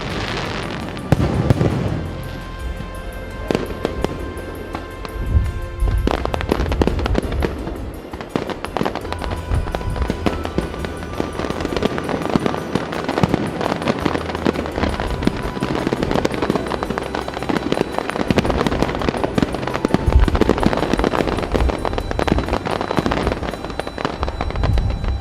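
Aerial fireworks bursting overhead: dense crackling throughout, with heavier low booms a few seconds apart. Music plays underneath.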